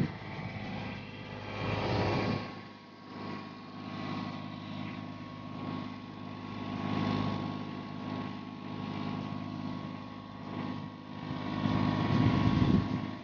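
Shindaiwa DGW400DM diesel engine welder-generator running steadily with an even hum, swelling louder about two seconds in and again near the end.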